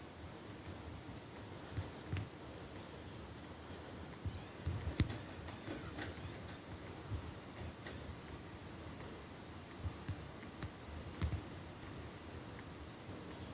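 Faint background noise with a soft, regular high tick about every two-thirds of a second and a few low thumps, the strongest about five seconds in.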